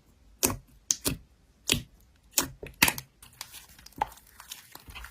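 Slime being played with by hand: sharp popping clicks, about six in the first three seconds, then a denser crinkly crackling from about three seconds in.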